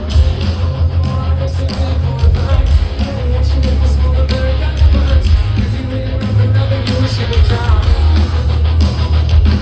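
Live rock band playing loudly, with heavy booming bass and a voice singing over it.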